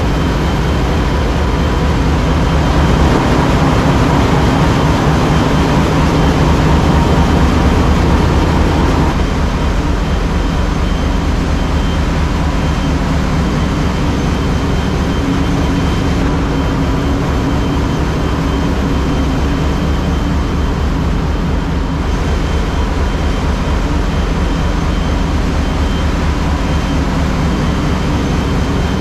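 Large marine diesel engines and engine-room machinery running steadily, a loud, dense rumble with a steady high whine over it. It is a little louder for the first nine seconds or so, then settles slightly lower.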